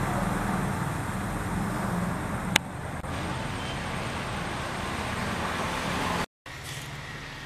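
Steady low rumbling background noise, traffic-like, with one sharp click about two and a half seconds in. It breaks off for a moment about six seconds in and comes back quieter.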